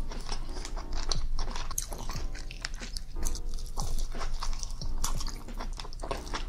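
Close-miked eating sounds: wet chewing, smacking and biting on king crab meat dipped in sauce, a run of many small clicks and squishes. Background music plays underneath.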